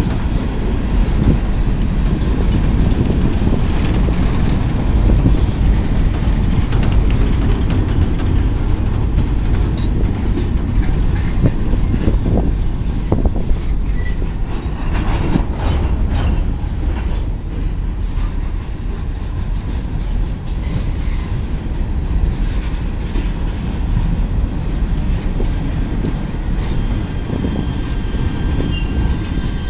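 Freight cars rolling past close by: a steady loud rumble and clatter of steel wheels over the rails and the crossing, with a few sharp clanks partway through. A high, steady squeal joins near the end.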